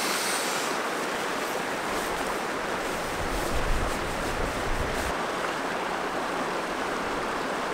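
River rapids rushing in a steady, even wash, with a few low rumbles about halfway through.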